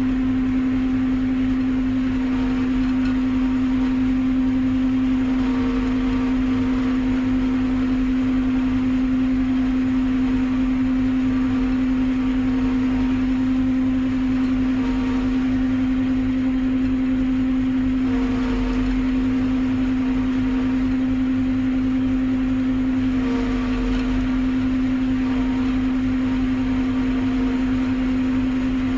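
Forage harvester running steadily while cutting standing maize for silage, heard from inside its cab: a strong, even, droning hum from the engine and cutting machinery.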